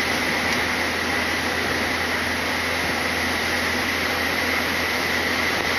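Steady running noise inside a moving tour bus with a diesel-type combustion engine rather than an electric motor: an even hiss over a low, constant drone, with a steady higher whine.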